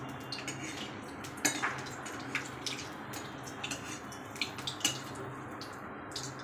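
Whole dried red chillies sizzling in hot oil in a kadhai, with scattered irregular pops and crackles and light scrapes and clinks of a steel ladle against the pan.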